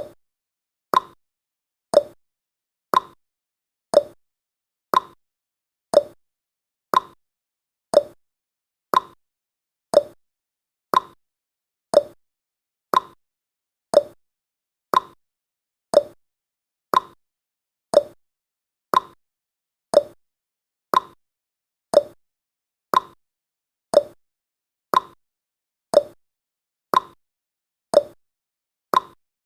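Countdown timer's clock-tick sound effect, one short sharp tick every second, steady and even.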